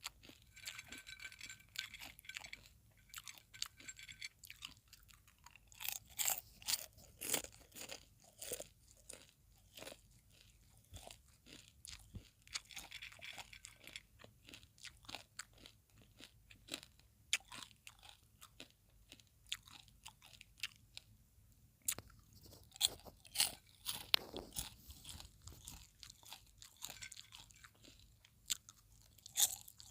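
Close-miked chewing of popcorn: irregular crisp crunches and crackles as mouthfuls are bitten and chewed, in clusters with brief lulls between.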